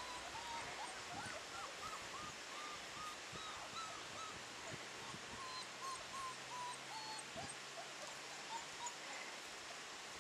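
Weimaraner puppies, about four weeks old, whimpering in a run of short high squeaks, two or three a second, which thin out near the end.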